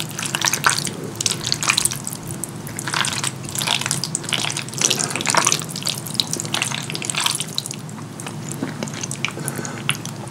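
Wooden fork stirring, twirling and lifting sauce-coated fettuccine in a skillet. It makes irregular wet, sticky squelching and crackling sounds.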